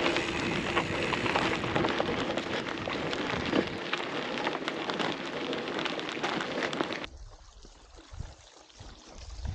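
Mountain bike rolling over a gravel track, a steady crunching and rattling of tyres and frame. About seven seconds in it cuts off suddenly to a much quieter low rumble.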